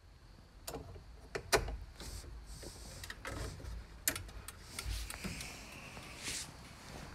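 A series of sharp clicks and knocks a second or so apart over a low steady rumble, the loudest knock about a second and a half in.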